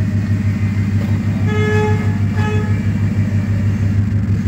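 Car engine idling steadily. A horn toots twice, briefly, near the middle.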